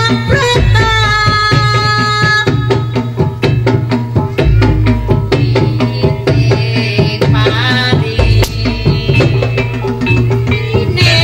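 Javanese jaranan gamelan music: fast, steady kendang hand-drum strokes under a held melody line that slides in pitch in places, over a steady low drone.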